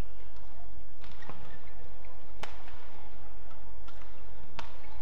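Badminton rackets striking a shuttlecock in a doubles rally: four sharp hits, a quick pair about a second in, another about halfway through and one near the end, over a steady low hum.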